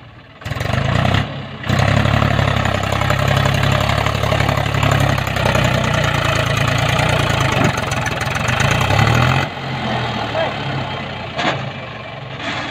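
Mahindra 275 DI tractor's three-cylinder diesel engine working under heavy load as it drags a loaded trailer through a muddy trench. It runs steady and strong from about two seconds in and eases off for the last few seconds.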